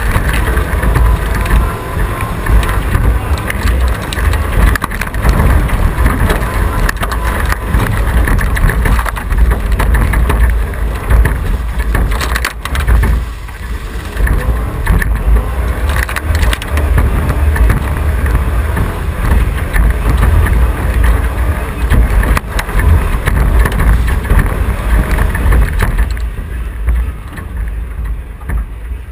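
1981 Chevy stepside pickup's engine running hard as the truck races through a mud course, with wind buffeting the hood-mounted microphone. The engine eases off near the end as the truck slows.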